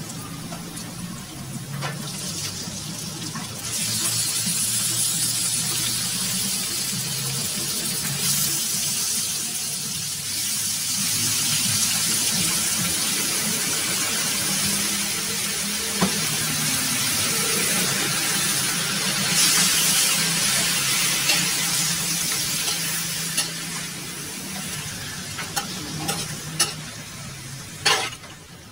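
Loud sizzling of food frying in an aluminium wok: chopped onion and garlic sautéing in oil, then raw chicken pieces frying. There are a few sharp clinks of a metal spatula against the wok, mostly near the end as the chicken is stirred.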